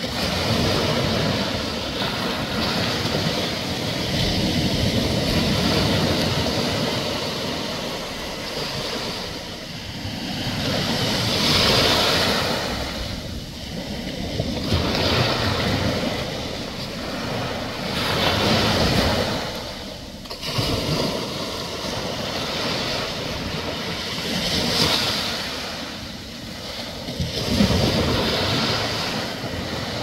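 Small ocean waves breaking and washing in, the rush of surf swelling and falling back every few seconds.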